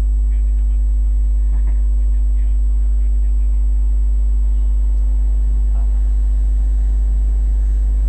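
Loud, steady low hum with a fainter steady higher tone above it, unchanging throughout, with faint voices and street sounds underneath.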